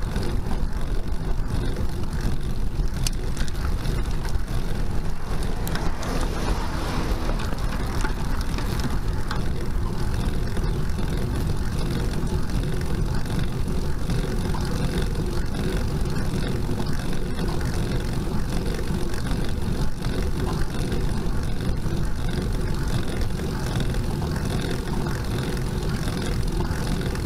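Steady low rumble of wind and road noise on a bicycle-mounted camera's microphone as the bike rolls slowly uphill on asphalt.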